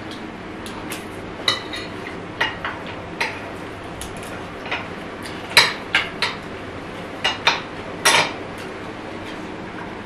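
Chopsticks and metal spoons clinking and scraping against plates and a baking tray during a meal: a dozen or so scattered short clinks, the loudest about halfway through and again near the end.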